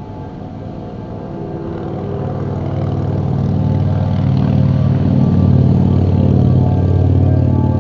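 A motor vehicle's engine growing louder over the first few seconds as it comes close, then running loudly nearby. Outdoor warning sirens keep sounding faintly behind it.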